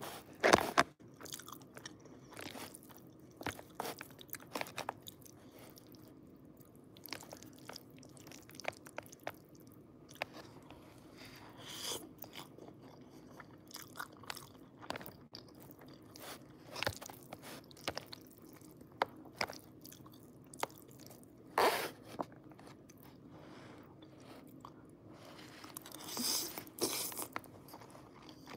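Close-miked chewing and mouth sounds of someone eating pasta with chicken in cream sauce, with scattered clicks and taps of a plastic fork against a plastic takeout container. Noodles are slurped up near the end.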